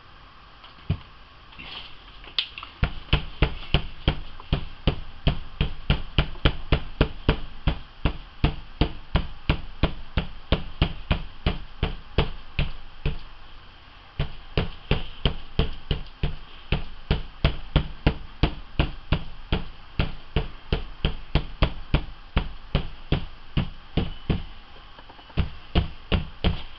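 Handled ink applicator block tapped again and again onto an inked art tile, about three taps a second, with a brief pause about halfway through. This is pouncing the alcohol ink to blend it rather than rubbing.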